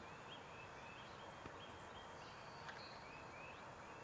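Faint outdoor ambience: short, high chirping calls repeating about three times a second over a low steady hiss, with a faint tick or two.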